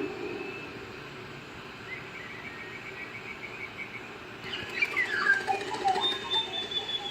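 Birds calling over a steady background hum: a fast trill about two seconds in, then from about four and a half seconds a louder run of calls that slide down in pitch, ending in a held whistle.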